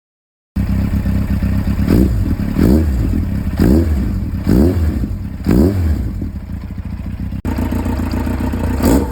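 Motorcycle engine idling and blipped through a Realize universal slip-on silencer whose internal structure has been modified. Quick revs come about once a second, then a stretch of steady idle, then more revs near the end.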